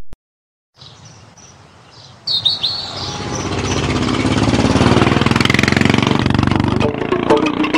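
Birds chirping, then a motor engine's steady running comes in about two seconds in and grows louder over the next couple of seconds before holding level.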